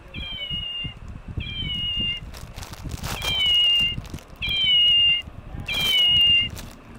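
Toy 'meow meow' cat playing its meow sound over and over: five short, high-pitched calls, each falling slightly in pitch, about a second apart.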